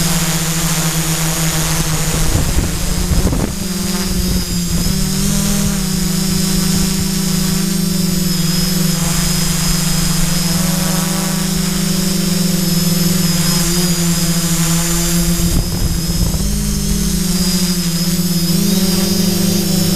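Quadcopter's four motors and propellers buzzing steadily at close range, with a high whine over a lower hum, their pitch shifting a little as the throttle changes. Brief low rumbles come about three seconds in and again near sixteen seconds.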